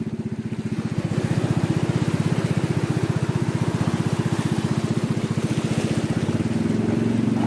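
Small motorized fishing boat's engine running steadily, with a fast, even beat.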